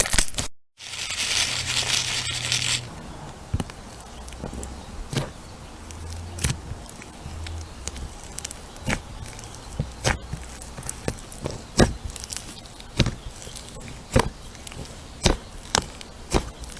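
Crunchy slime being handled: a couple of seconds of dense crackling near the start, then scattered sharp pops and crackles.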